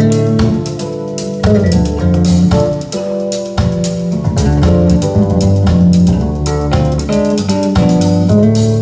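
Music with guitar, bass and drums played back through Cabasse active loudspeakers.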